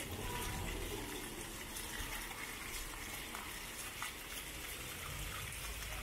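Jets of a ground-level plaza fountain shooting up and splashing down onto wet paving stones: a steady rush of falling water.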